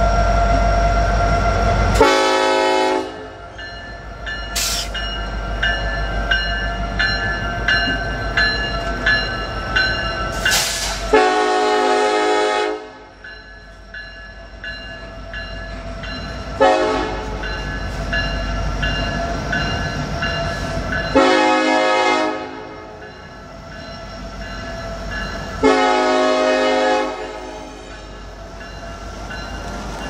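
Norfolk Southern SD70ACe diesel locomotive's horn sounding five blasts, the second the longest, over the rumble of the passing train. The engine's low rumble is loudest in the first two seconds, before the first blast.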